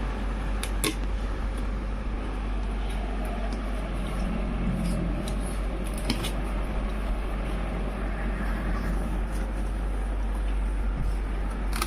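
Steady background noise with a constant low hum, broken by a few light clicks and knocks of packaging being handled during an unboxing.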